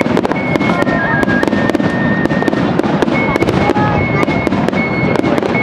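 Fireworks barrage: continuous rumbling booms with rapid, dense crackling throughout, and short steady high tones sounding over it.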